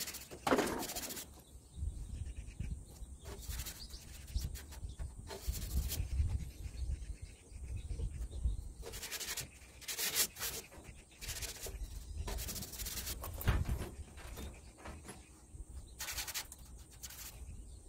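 A bare hand rubbing and wiping across textured fiber cement siding, working white cement paste into exposed screw heads: a series of short, irregular rasping strokes.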